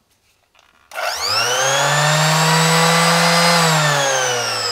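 Makita BO6030 random orbital sander test-run unloaded, held off the workpiece. About a second in the motor starts and its whine rises as it spins up, then holds steady, and near the end the pitch falls as it winds down.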